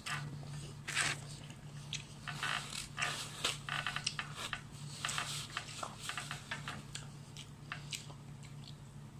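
Close eating sounds: chewing and lip-smacking with many short wet mouth clicks, over a steady low hum.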